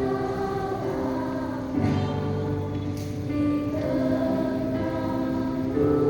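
Sunday-school children's choir singing a hymn in harmony. Long held notes change chord about every two seconds.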